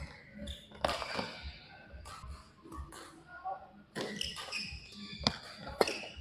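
Badminton rally: sharp racket strikes on the shuttlecock, one about a second in and two close together near the end, with shoes squeaking on the court floor between shots.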